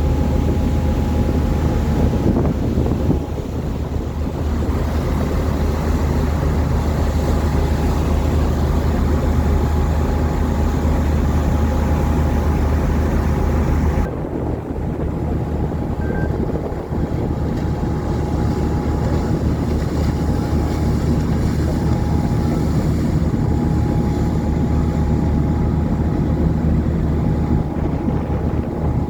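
Small boat's engine running steadily under way, a low drone with a thin whine above it, with wind buffeting the microphone. The sound changes abruptly about halfway through, as at a cut to another shot.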